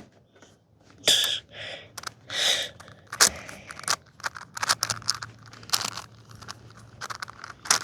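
A plastic 6x6 Rubik's cube being turned by hand, its layers clicking and scraping in quick, irregular bursts.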